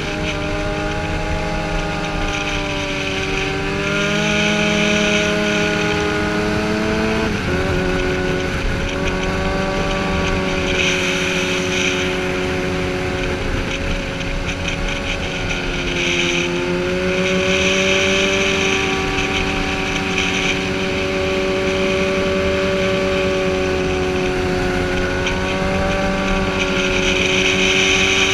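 Sportbike engine running hard at speed, heard from the rider's own bike, with steady wind rush. Its pitch drops abruptly once about seven seconds in, then holds fairly steady with slight rises and falls.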